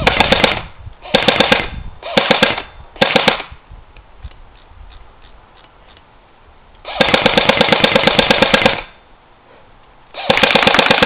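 G36C airsoft electric gun (AEG) firing on full automatic: four short bursts of rapid clicking shots in the first few seconds, then two longer bursts of about two seconds each, the last starting near the end.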